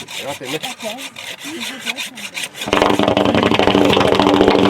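A motor comes in suddenly and loud about two-thirds of the way through, then runs steadily, after a quieter stretch of wavering calls or distant voices.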